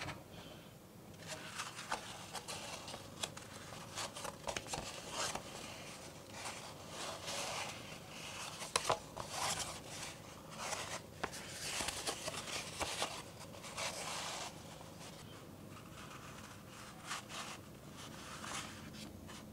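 Sheets of stiff, rough handmade egg-carton paper handled in the hands, rustling and scraping against each other and the fingers in short scratchy strokes with small taps. It eases off for a moment about fifteen seconds in, then starts again.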